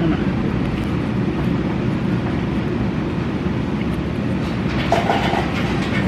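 Steady low rumble, with a brief higher tone about five seconds in.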